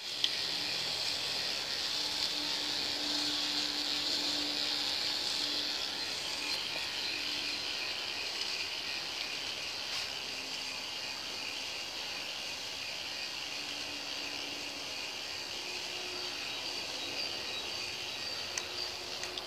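K'nex ball machine running: a steady plastic rattle from its lifts and balls rolling along the tracks, with an occasional sharp click.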